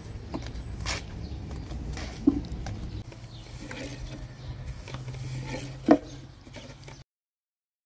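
Wooden rolling pin rolling and rubbing thin dough on a wooden board, over a steady low rumble, with light clicks and two brief sharp sounds. The sound cuts off suddenly near the end.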